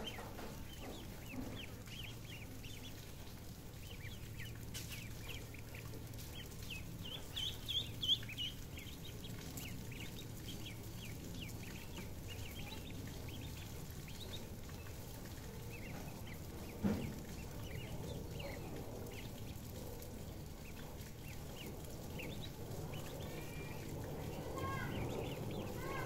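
A brood of ducklings peeping, many short high cheeps overlapping, with a louder run of peeps about eight seconds in. A single knock comes partway through, over a steady low hum.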